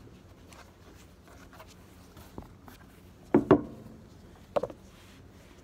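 Desk handling sounds: soft rubbing and small clicks as a tablet in a folio case and papers are handled, with a double knock a little over three seconds in and another knock about a second later.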